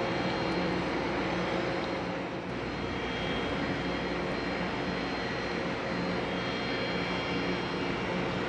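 Car ferry's diesel engines and machinery running steadily: a constant hum with several held tones over a wash of engine noise.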